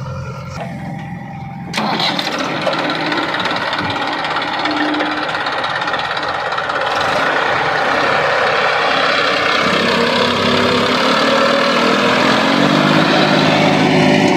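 Heavy diesel machine engine running hard. It jumps suddenly louder about two seconds in, then keeps building and climbs in pitch near the end, as if revving under load.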